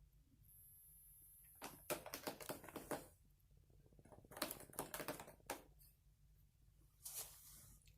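A cat clawing at its scratcher, in two quick bouts of rapid, scratchy strokes that sound like clicking, followed by a short rasp near the end.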